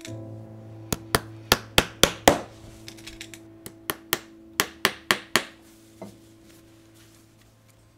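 Shoemaker's hammer tapping, about a dozen sharp taps in two quick runs with a last one a little later, over a faint steady hum.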